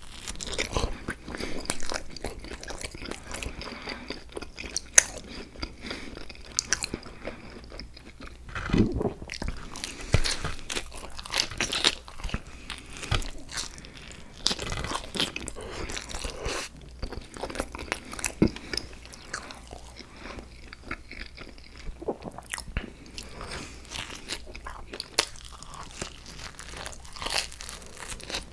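Close-miked eating: a person biting and chewing food, with many irregular wet crunches and mouth clicks and a few louder bites in the middle.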